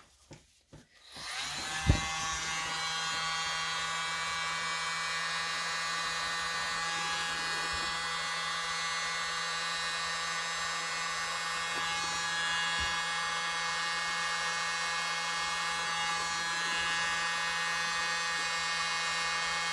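Handheld mini blower starting up about a second in and then running steadily with an even, high whine, blowing out an acrylic pour. A knock comes just after it starts.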